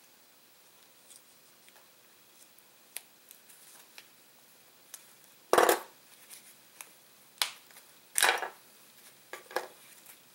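Small clicks and handling noise of hand tools working on a lithium-polymer battery pack, freeing its last cell, with three louder short crackling scrapes: one about halfway through and two near the end.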